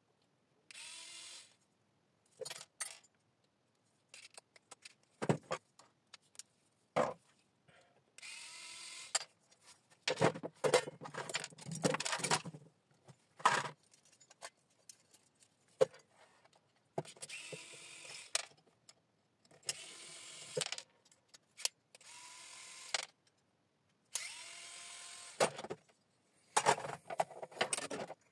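Small electric screwdriver running in short bursts of about a second each, several times, as it drives out the screws of an electricity meter's coil assembly. Sharp clicks and clinks of small metal parts come in between.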